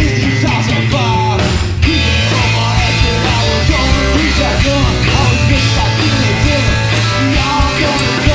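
Loud rock music with a singer over a full band.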